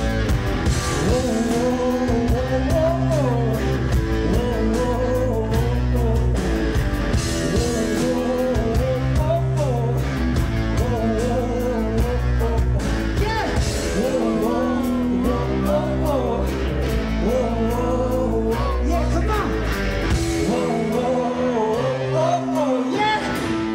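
Live blues-rock from a two-piece band: distorted SG-style electric guitar played over drums, loud and continuous. The lowest notes drop away for a moment near the end.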